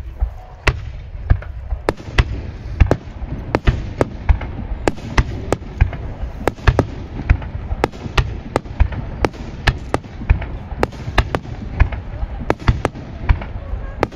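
Fireworks display: a rapid, irregular string of sharp bangs from aerial shells bursting and being launched, about two or three a second, over a continuous low rumble.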